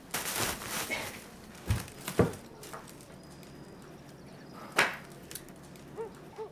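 A second of rustling, then two dull knocks about two seconds in, and a single sharp click near five seconds.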